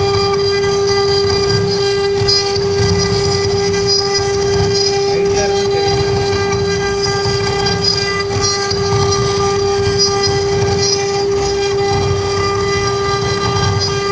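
CNC router spindle motor running at a constant speed, giving a steady high-pitched whine that holds one pitch throughout, with an uneven low rumble underneath.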